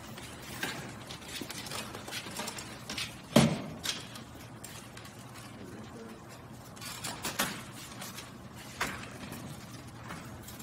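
Metal clicks and clanks from a Stryker ambulance stretcher's frame and legs as it is loaded into an ambulance, with one sharp knock about three and a half seconds in.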